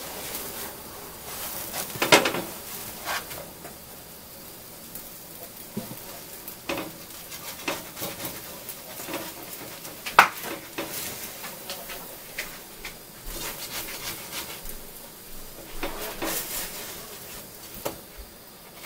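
Bread rolls toasting on a hot griddle with a faint steady sizzle, over which come scattered clicks, taps and scrapes as the rolls are handled and buttered with a silicone spatula; the sharpest knocks come about two seconds in and about ten seconds in.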